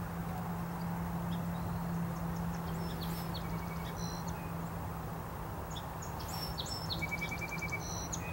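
Small birds chirping in short, scattered high calls over a steady low hum and a constant outdoor background rush; near the end one bird gives a quick, even trill of about eight notes.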